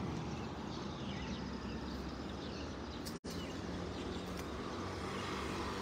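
Faint, steady outdoor background noise with a low hum underneath; the sound cuts out for an instant about three seconds in.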